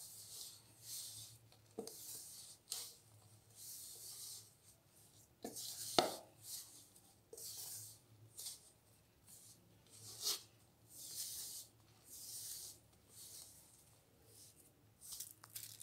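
Hands rubbing and squeezing crumbly shortbread dough of butter, sugar, flour and cornstarch against a pan: faint soft rasping swishes about once a second, with a sharp click about six seconds in.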